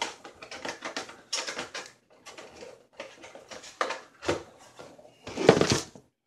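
Plastic packaging bags crinkling and rustling as they are handled, in irregular bursts, the loudest about five and a half seconds in. The sound cuts off abruptly just before the end.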